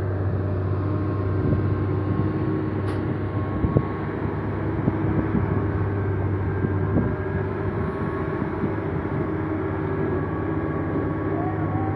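Heavy diesel truck engine running steadily with a low drone, with a bus close by. A couple of sharp clicks come about four seconds in.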